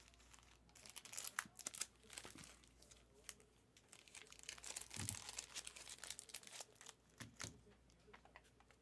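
Faint crinkling and tearing of a trading card box's plastic wrap and pack wrapper being opened by hand, in scattered bunches about a second in and again around the middle.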